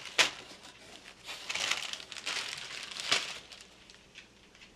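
Clear plastic packaging bags crinkling and rustling as they are handled in a cardboard box, with a sharp crackle near the start and another about three seconds in, quieter near the end.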